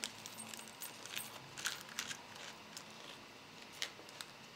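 Faint jingling of tiny jingle bells and light clicks of small wooden craft pieces as a little bag of card-making embellishments is handled.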